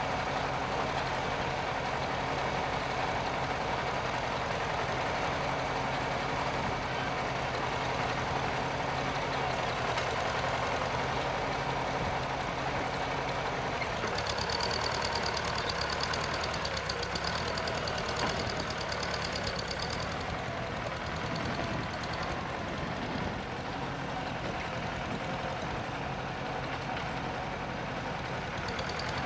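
Farmall Super C tractor's four-cylinder engine running steadily while dragging an implement over loose dirt, its note shifting about halfway through. A thin high-pitched sound joins for several seconds midway.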